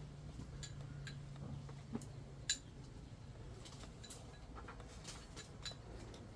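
Faint scattered clinks and taps of utensils against dishes, one sharper clink about two and a half seconds in, over a low steady hum.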